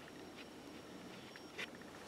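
Quiet woodland background: a faint, rapid chirping that repeats several times a second, with a few light clicks and one sharper snap about 1.6 seconds in.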